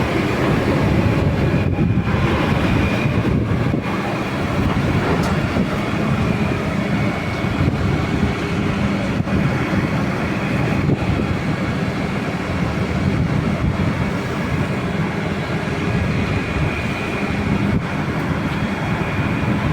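Burrows GG10 grain grinder running steadily: loud, continuous machine noise with a low hum held throughout.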